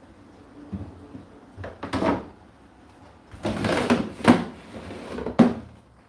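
Hollow plastic knocks and clatter from a condenser tumble dryer's lint filter and water-container drawer being handled, with a sliding scrape partway through as the drawer comes out. The sharpest click comes near the end.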